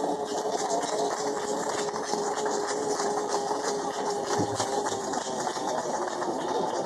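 Audience applauding: a dense spatter of hand claps, with a steady hum running underneath.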